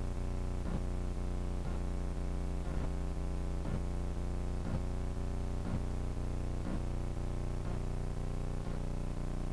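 Background music with a steady beat of about one stroke a second over sustained notes.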